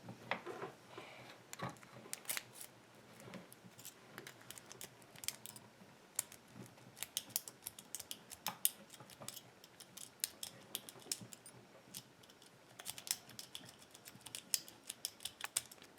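Lock pick working the pins of a 3-pin EZCURRA lock under tension: faint, irregular small metallic clicks and scrapes, coming in quick clusters.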